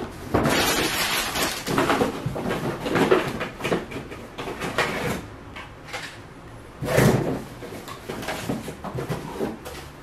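Objects being handled and moved about: rustling and knocks, with the loudest clatter about seven seconds in.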